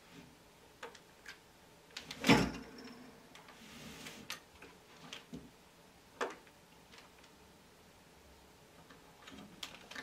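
Sparse small clicks and knocks of a desktop processor being fitted by hand into a motherboard's CPU socket. One louder clack about two seconds in, another about six seconds in, and a few quick clicks near the end.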